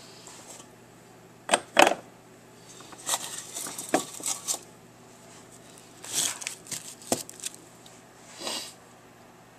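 Kitchen knife cutting through an onion and knocking on a cutting board, in irregular bursts of taps and clatter. The two loudest knocks come just under two seconds in.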